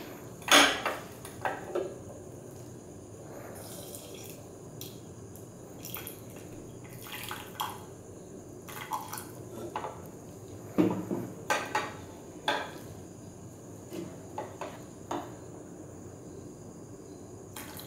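Ammonium hydroxide poured from a plastic bottle into a glass beaker, with scattered sharp clinks of glass, a few about a second in and a cluster later on.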